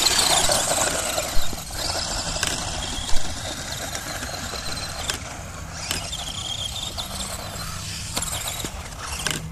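Helion Animus 18TR 1/18-scale electric RC truggy running on a dirt track: the high-pitched whine of its motor and drivetrain rising and falling with the throttle, with tyres scrabbling on loose dirt. Two sharp knocks about one and a half and three seconds in.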